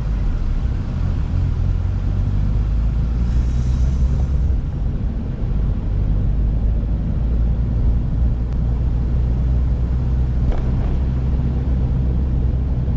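Subaru WRX driving: a steady low engine and road rumble, with a short hiss about three seconds in.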